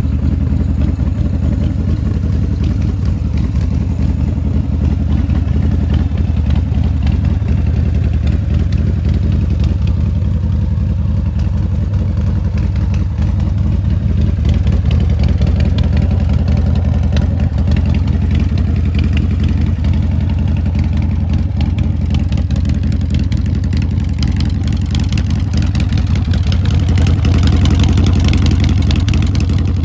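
S&S V-twin engine of a 2002 American Ironhorse Slammer idling steadily through its Martin Brothers exhaust, with a deep, low pulsing note that grows a little louder near the end.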